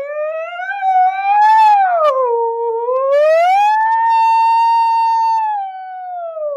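A man's voice holding one long drawn-out "byyye" without a break, its pitch sliding slowly up and down like a siren and staying high and steady for a second or so past the middle.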